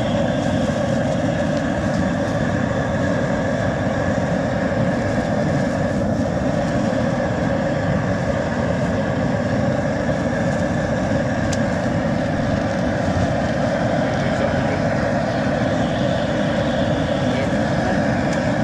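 A steady, unbroken roar with a constant hum running through it, like a machine or burner running without change.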